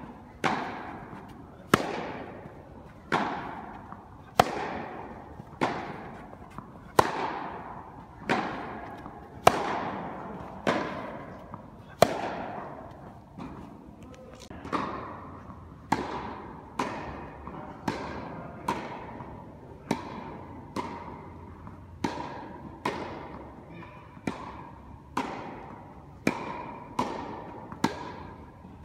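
Tennis ball hit back and forth in a rally, a sharp racquet strike about every second and a quarter, each one echoing in an indoor tennis hall.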